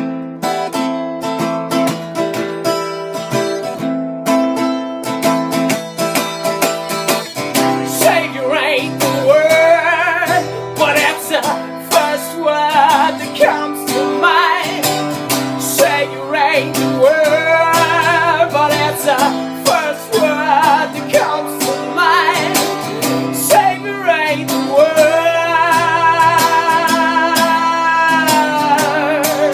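Acoustic guitar strummed in a steady rhythm, with a man singing over it from about eight seconds in and holding long wavering notes near the end.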